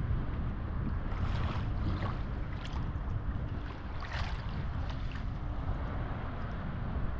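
Wind buffeting the microphone with a steady low rumble, over small choppy waves lapping and splashing at the microphone, a few splashes louder than the rest, the clearest about four seconds in.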